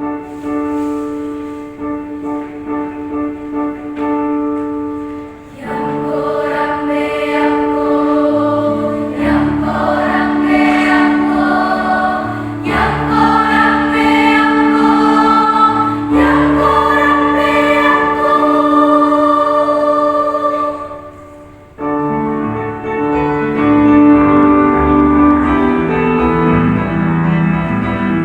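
A choir singing: a softer held passage at first, growing fuller about six seconds in. The singing breaks off briefly a little after twenty seconds, then carries on.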